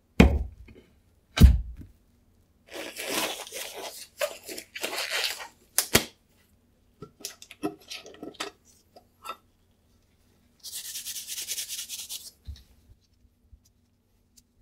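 Workshop handling noise: two heavy thumps as a clear sheet is set down on the table, then a stretch of rustling, tearing noise and a sharp click. Scattered small metallic clicks follow as the lid of a tin of release wax is prised open, and about eleven seconds in there is a rubbing hiss as the wax is wiped over the sheet.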